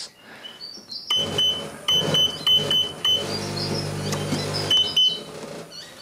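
Vulcan Dishlex 500E dishwasher's control panel giving a string of short, same-pitched beeps with button clicks. Its motor then hums steadily for about a second and a half before stopping, and one more beep comes near the end: the repaired control board is responding and the machine runs.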